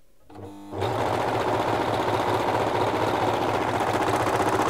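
Necchi OV234 overlocker starting up about a third of a second in, speeding up, then running steadily as it serges and trims the edge of a piece of fabric. This is a test seam with a newly replaced knife, and the stitching is back to normal.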